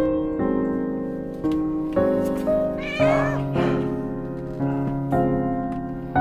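Soft piano background music, with a cat meowing once about three seconds in.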